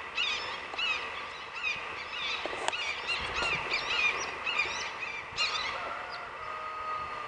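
Red-tailed hawks calling, a long run of short, high, downward-slurred calls repeated many times.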